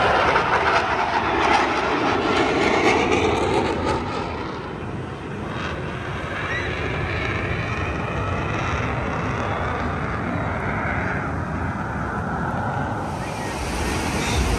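Airplane flying past overhead: its engine noise is loudest over the first few seconds, falling in pitch as it goes by, then continues as a quieter drone.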